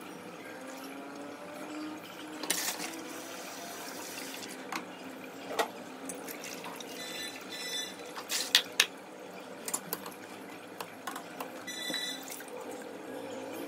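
Water running from a kitchen tap, with a few knocks and clinks of utensils, some of them ringing briefly like a steel vessel.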